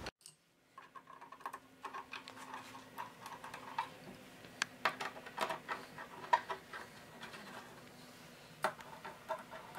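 Hand screwdriver driving small screws into a metal instrument faceplate: a run of faint, irregular clicks and ticks as the blade seats and the screws turn.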